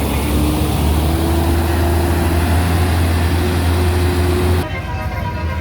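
Heavy diesel bus engine running close by, a steady low rumble that cuts off abruptly near the end, giving way to a quieter mix of several steady tones.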